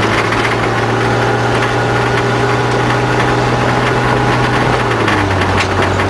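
Off-road vehicle's engine running at steady revs while driving on a gravel track, heard from inside the cab; the engine note drops slightly about five seconds in.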